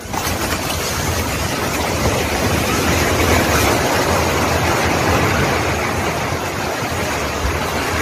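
Multi-storey apartment building collapsing in the earthquake: a loud, continuous rushing rumble of falling concrete and debris that sets in abruptly and holds for several seconds.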